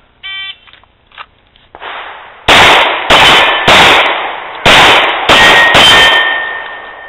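A shot-timer start beep, then about two seconds later a Glock 19 9mm pistol fires six shots over about three and a half seconds. The steel targets ring after hits.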